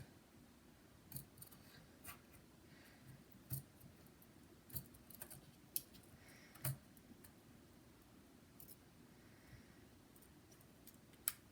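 Scattered light clicks and taps of a laptop heatsink being set down and fitted over the CPU, about seven in all, the last one sharper, with near silence between them.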